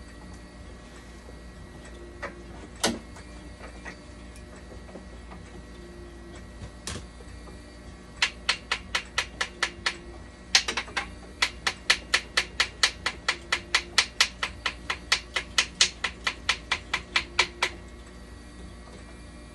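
Rapid, even mechanical clicking, about five clicks a second, in two runs with a short break between them, after a few single clicks.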